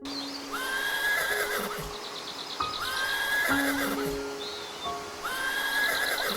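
Horse whinnying three times, about two and a half seconds apart, over background music with low held notes.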